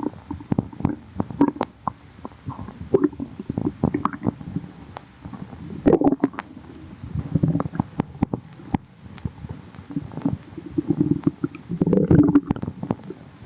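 Human stomach growling and gurgling: irregular bubbly rumbles and little clicks, swelling louder about six seconds in and again near the end.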